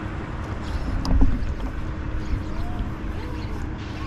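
Wind buffeting the microphone and water slapping against a rocking kayak, with one sharp knock about a second in.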